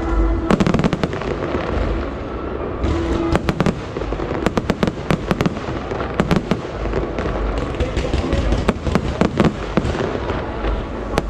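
Fireworks display: shells bursting in quick clusters of sharp cracks and bangs over a steady low rumble.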